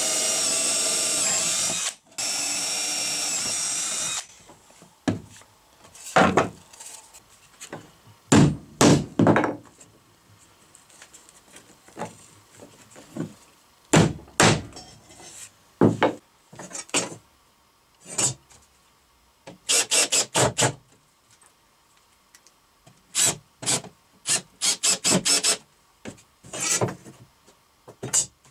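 A 24 V cordless drill boring through a pine board in two steady runs of about two seconds each, with a short pause between them. After that come scattered short knocks and brief tool noises, including a mallet striking the board.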